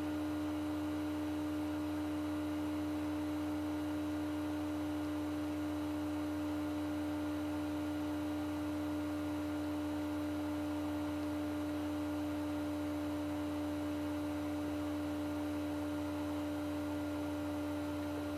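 A steady hum with one strong mid-pitched tone and fainter tones above it.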